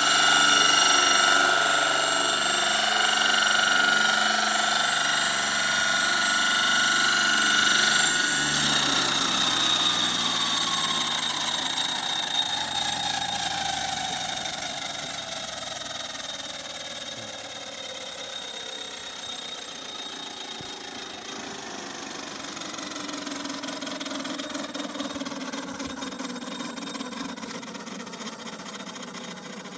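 Large radio-controlled scale model of a Boeing 234 tandem-rotor helicopter: its drive whine and rotor noise run steadily as it settles onto the ground. About eight seconds in, the pitch starts to fall steadily and the sound fades as the rotors spin down after landing.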